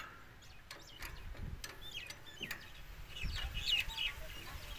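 Birds chirping in the background: short calls gliding up and down, growing busier about three seconds in. A few faint clicks come from the tractor's clutch linkage rod being worked by hand.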